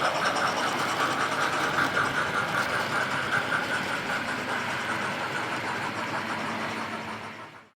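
Hornby Black 5 OO-gauge model steam locomotive running on a layout: its sound decoder plays a rhythmic steam chuff over the wheel and motor noise. The sound fades a little, then cuts off suddenly near the end.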